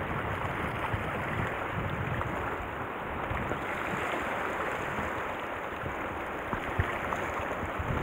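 Steady wash of sea water against shore rocks, with some wind on the microphone; a couple of small clicks near the end.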